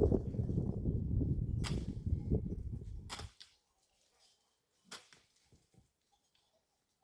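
Two sharp cracks over a loud, low rumbling noise that cuts off suddenly about three seconds in, followed by near silence with one faint click.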